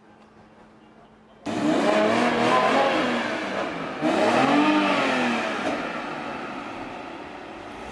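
Performance car engine under hard acceleration, starting suddenly about a second and a half in, its pitch rising and falling twice.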